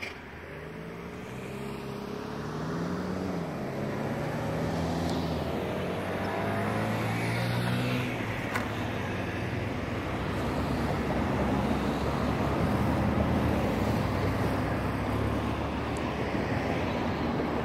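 Road traffic: a motor vehicle's engine note wavering in pitch over a continuous traffic hum, growing louder over the first several seconds and then holding steady.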